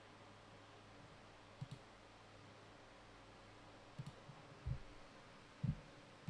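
A few soft clicks in a quiet small room: a quick pair of clicks, a few more, then two duller, louder knocks near the end, over a faint steady hum.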